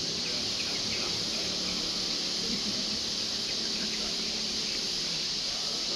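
Steady high-pitched drone of forest insects, an unbroken shrill hum that holds at one level throughout.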